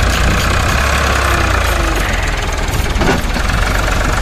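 Powertrac 439 tractor's three-cylinder diesel engine running steadily at close range.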